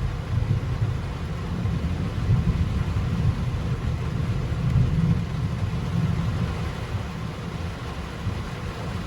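Heavy rain hissing steadily under a deep low rumble that swells around the middle and eases toward the end.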